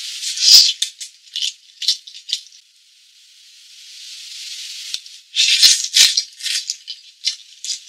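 Background music carried by a shaker: a hissing swell rises into a few quick rattling shakes, and the same pattern comes round again about five seconds later.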